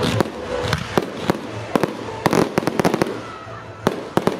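Fireworks going off: an irregular series of sharp bangs and cracks, with a quick cluster of crackling reports about halfway through.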